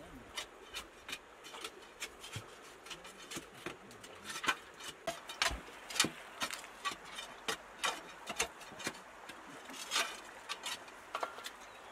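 Digging bar striking and scraping stones and gravel in a wet pit: irregular clinks and knocks, several a second, with the sharpest hits about six and ten seconds in.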